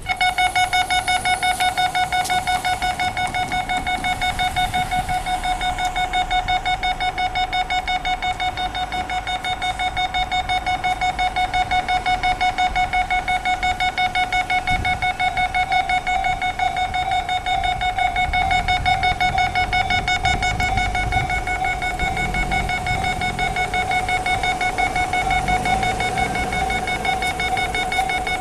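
Electronic railway warning alarm warning of an approaching train, a single high tone beeping in rapid, even pulses; it starts suddenly and keeps going.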